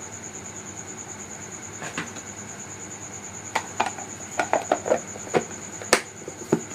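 A series of light knocks and clinks of kitchenware being handled, a few near the start and a quick run of them in the second half. A steady high-pitched whine runs underneath.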